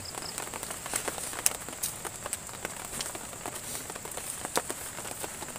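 Scattered drips tapping on a tarp shelter, irregular sharp ticks over a faint hiss, with a steady high-pitched insect drone behind them and a few short high chirps at the very start.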